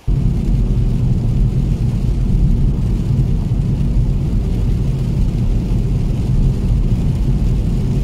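Car driving, heard from inside the cabin: a steady, loud low rumble of road and engine noise.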